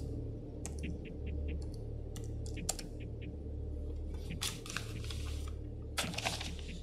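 Laptop keyboard typing in scattered keystrokes, then sheets of printer paper rustling as they are picked up and handled, in two stretches near the end.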